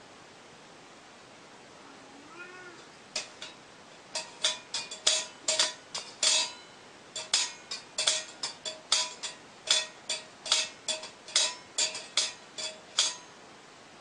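A single faint cat meow, then a quick, irregular run of about two dozen short, bright ringing taps, two or three a second, each at the same pitch.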